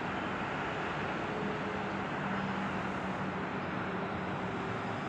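Steady hum of city road traffic heard from high above the street, with a faint low engine drone held through the middle.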